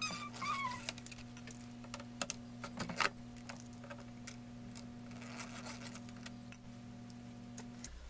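Scattered light clicks and taps of a hand drill and small screws being worked out of a laptop's plastic bottom cover, over a steady low hum. There is a brief squeak near the start.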